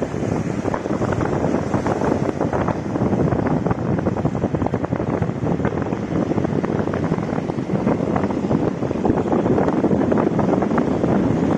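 Strong wind buffeting the microphone, a steady loud rushing with crackly gusts, over choppy sea waves breaking on a rocky shore.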